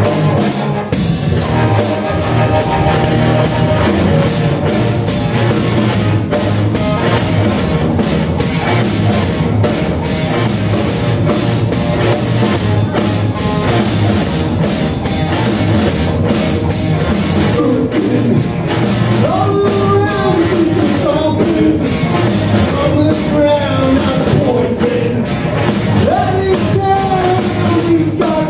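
Live rock band playing: distorted electric guitar, bass guitar and drum kit with steady cymbal and drum hits. About two-thirds of the way through, a lead line sliding up and down in pitch comes to the front.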